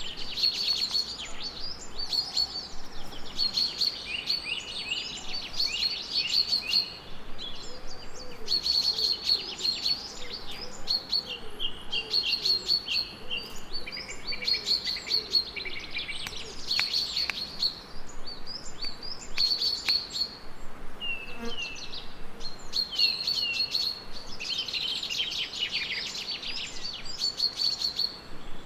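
Several songbirds chirping and singing at once, a continuous chorus of rapid high chirps and trills, with a lower warbling song joining from about 8 to 13 seconds in.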